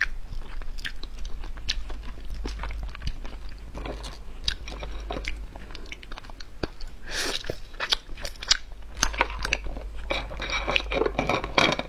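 Close-up chewing and crunching of cooked hermit crab shell, with many sharp cracks and crackles as the shell is bitten and pulled apart by hand, busiest about seven seconds in and again near the end.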